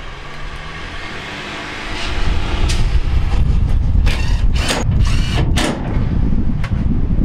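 Cordless drill with a Phillips bit driving screws into a dryer panel in several short bursts, with handling clatter and rumble around them.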